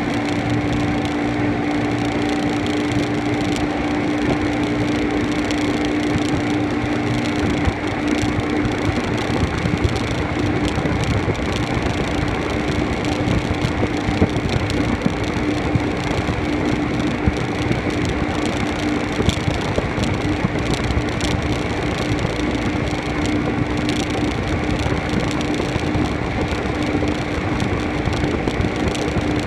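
Pair of 2006 Evinrude 200 hp E-TEC two-stroke V6 outboards running steadily at planing speed, a constant engine tone over a rush of wind and water from the wake.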